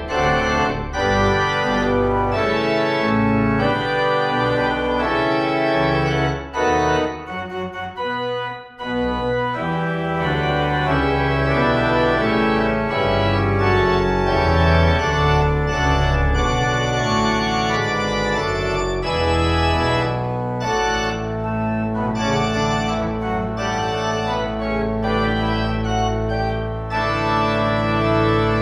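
Organ music playing slow sustained chords, with a brief lull about eight seconds in and a long-held low bass note through the last third.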